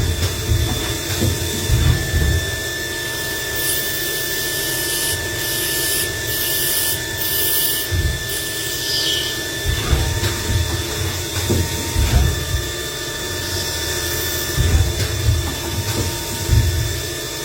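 CNC machine tool running a cut: a steady high spindle whine over a constant hiss, with irregular low thumps. The whine tones change pitch about ten seconds in.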